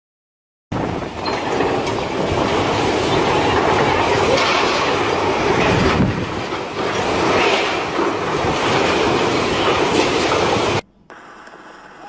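Loud, gusting tornado wind blowing hard across the microphone. It starts abruptly about a second in and cuts off suddenly near the end.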